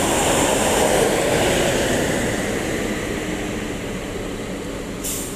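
Intercity coach bus driving past close by and pulling away, its diesel engine and tyres loudest at first and fading as it moves off. A short hiss comes near the end.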